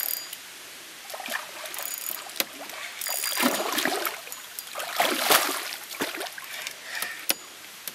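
Water splashing in irregular bursts as a hooked common carp thrashes at the surface, with a few sharp slaps.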